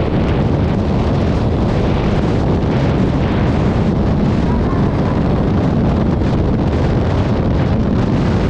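Wind buffeting the microphone of a scooter ridden at speed: a steady, loud rush with no clear engine note standing out.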